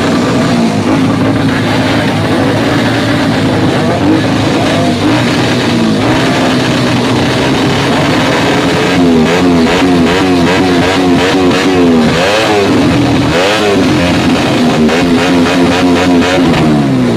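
Vehicle engine revved in repeated blips from about halfway through, with sharp pops and crackles from the exhaust.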